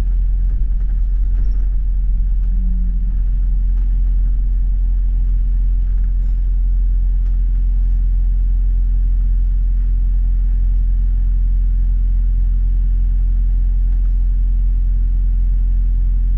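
Steady low rumble of a London bus's engine and running gear heard from inside the bus, with no rise or fall in pitch.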